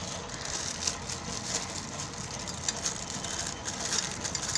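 Plastic packaging rustling and crinkling as it is handled and opened, small irregular crackles over a steady background hiss.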